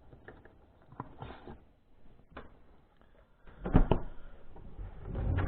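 Kitchen handling noises on a counter: light scattered clicks and taps, then a couple of heavier knocks about three and a half seconds in.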